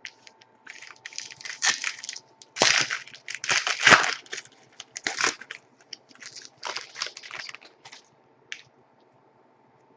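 Trading-card pack wrapper crinkling and rustling in irregular bursts as the pack is torn open and the cards are handled.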